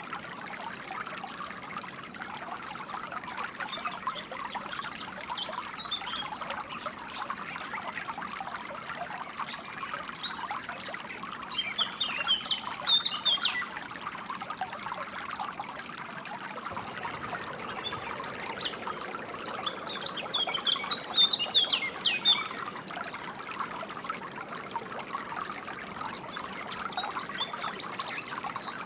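Water trickling steadily over stones, with birds chirping in quick clusters of short high notes, busiest around a third and again about two thirds of the way through.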